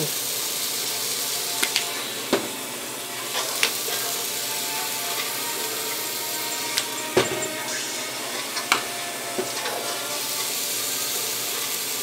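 Chicken breasts sizzling steadily on a George Foreman electric contact grill, with several sharp clicks and taps scattered through as seasoning shakers are handled over the meat.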